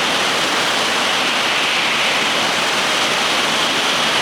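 Shinkansen train running along the platform: a loud, steady rush of wheel and air noise that swells just before and eases off just after.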